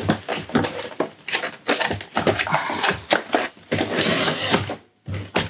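Hands handling the plastic casing of a Roborock S50 robot vacuum: an irregular run of plastic clicks, knocks and scraping as the top cover panels are worked and the body is gripped.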